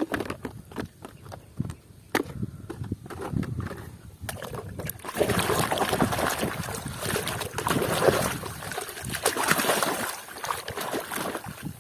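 A plastic toy being washed by hand in water: scattered knocks and clicks of plastic for the first few seconds, then a continuous splashing and sloshing of water from about five seconds in.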